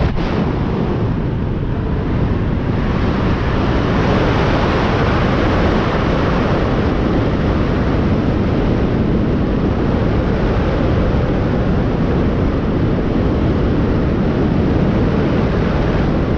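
Loud, steady rush of wind over the microphone in flight.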